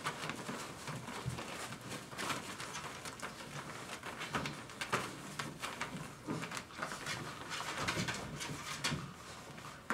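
Five-week-old Dogo Argentino puppies scuffling and playing in a whelping box: scrabbling paws and rustling shredded paper, with occasional faint puppy grunts.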